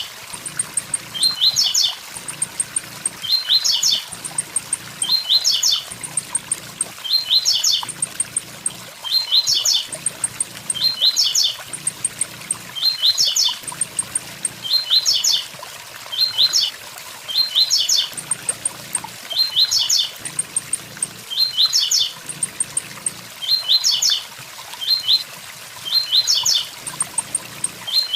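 Blue-black grassquit (tiziu) singing its short 'tui tui zel zel' phrase of a few quick high notes, repeated over and over roughly every second, over a steady waterfall rush.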